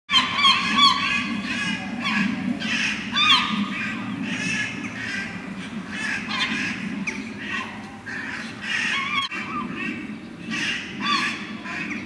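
Crows cawing and a gull calling over one another, many short calls in quick succession, above a steady low background rumble.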